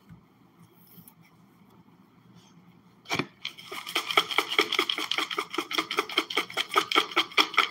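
Clear plastic wrapping crinkling as it is shaken and squeezed between two hands. It starts after a sharp click about three seconds in and runs as fast, even crackles, several a second.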